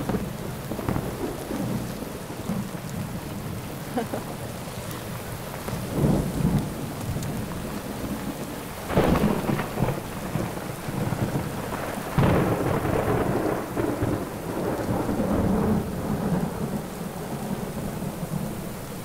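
Steady rain falling on wet pavement, with louder low rumbling swells about 6, 9 and 12 seconds in.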